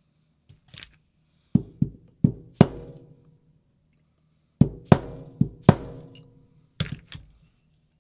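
About ten sharp hammer blows on metal in three quick groups, each leaving a short metallic ring, tapping a stuck roto-breach rod through a paintball marker's body.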